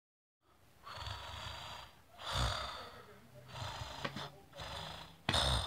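A person fake-snoring while pretending to be asleep: about five breathy snores and snorts, each about a second long, with short pauses between them.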